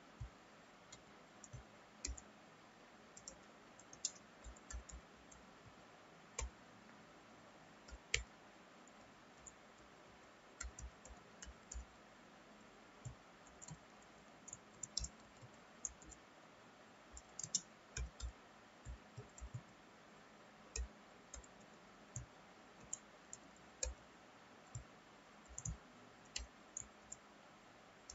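Computer keyboard keystrokes: sparse, irregular single clicks, sometimes in quick pairs, over a faint steady hiss.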